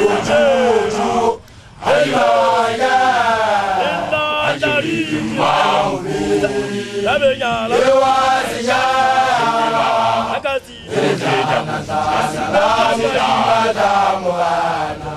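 A man chanting loudly in a declaiming, sung voice with long gliding notes, the chant of a newly graduated Basotho initiate (lekoloane); it breaks off briefly twice for breath, once about a second and a half in and again near eleven seconds.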